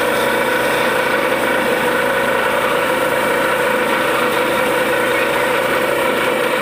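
Borewell drilling rig running steadily while it drills: a constant, even engine drone with steady whining tones and no change in speed.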